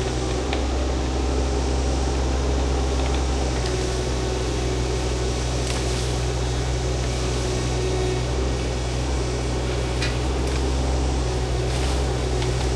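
Shantui mini excavator's engine running steadily under work, with a few faint clicks and knocks.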